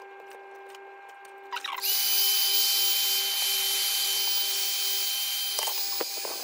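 Small handheld hot-air heat gun switched on with a few clicks about two seconds in, then blowing steadily: a rushing of air with a high, constant fan whine. It is heating shrink sleeving over the top of a ladder-line antenna.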